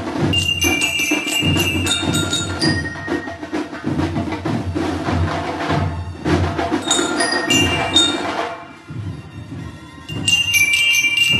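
Marching bell lyres (liras) playing a melody together, bright ringing struck notes over a marching band's drum beat. The bells drop out for a moment near the end, leaving the drums quieter, then come back in.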